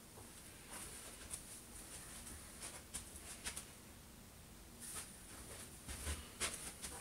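Faint rustling of clothing as it is pulled and adjusted on the body, with a few soft, short clicks and scuffs scattered through.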